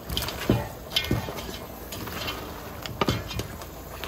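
Snow crab legs being stirred with a wooden spoon in a heavy iron pot: the shells clatter and knock against each other and the pot in several sharp, separate knocks, with a close group of them about three seconds in.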